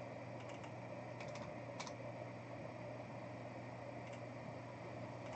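A handful of light computer keyboard keystrokes, clustered in the first two seconds with one more near the end, over a steady low hum of room tone.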